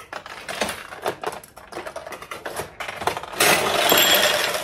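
Steel balls in a 1974 Nishijin Power Flash Thunderbird pachinko machine clicking and rattling rapidly and irregularly through the playfield pins. About three and a half seconds in, a louder, dense clatter of balls starts, with a faint high ringing over it.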